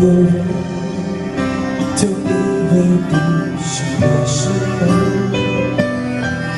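Live pop ballad music: band accompaniment with guitar, held notes and changing chords.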